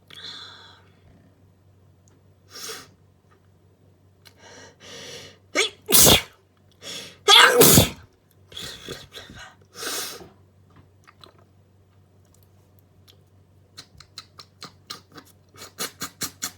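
Allergy sneezing: a few breaths build up, then a run of sneezes midway, two of them loud and sharp, followed by weaker sneezes or breaths. A quick run of light clicks follows near the end.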